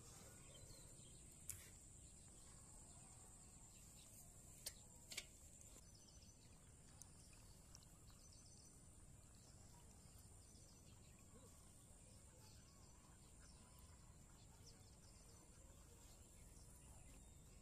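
Near silence: faint outdoor ambience with a steady high hiss and faint chirps, broken by three short sharp clicks in the first few seconds.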